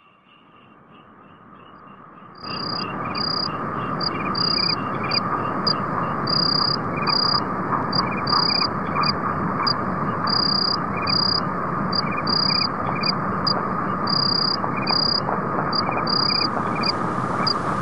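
Insect-like chirping: short high chirps repeated about twice a second, irregularly, over a steady hum and hiss. It fades in and gets suddenly louder about two and a half seconds in.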